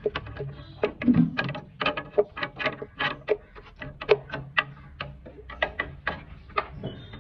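Irregular sharp clicks, taps and knocks, several a second, of hand work on a side-by-side refrigerator, over a low steady hum.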